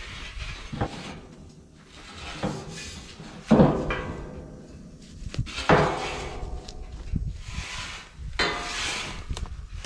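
Hollow metal clanging and knocking from a steel pipe livestock feeder and gate, a few sharp strikes that each ring briefly; the loudest comes about three and a half seconds in, with another near six seconds.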